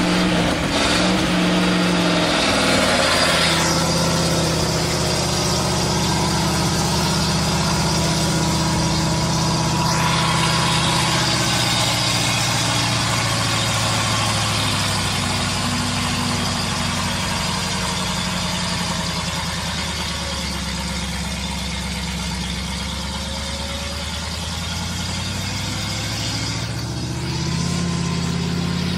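Engine of a heavily loaded Soviet six-wheeled log truck running under load as it crawls through mud, its note rising and falling several times.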